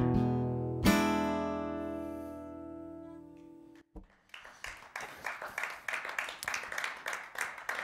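Acoustic guitar strummed once more as a final chord about a second in, ringing out and fading over about three seconds to end the song. After a brief gap, audience applause follows.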